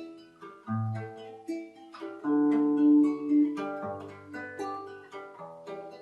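Acoustic guitar played fingerstyle: a melody of single plucked notes over low bass notes, with a louder note held for about a second and a half near the middle.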